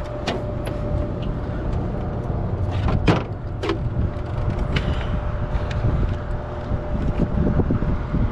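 A motor running steadily with a low hum, with scattered sharp clicks and a louder knock about three seconds in.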